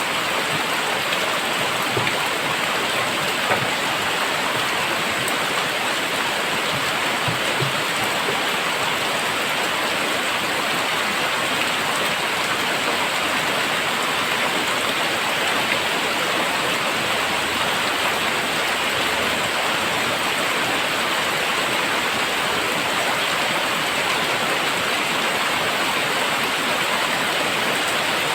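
Very heavy rain falling steadily, a dense, even hiss of downpour with no let-up.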